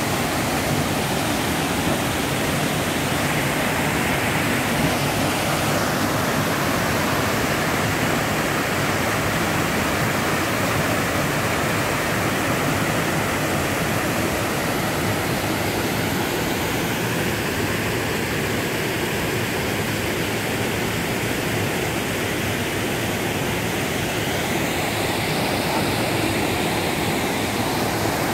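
Small waterfall pouring over rock ledges into a pool: a steady, unbroken rushing of water.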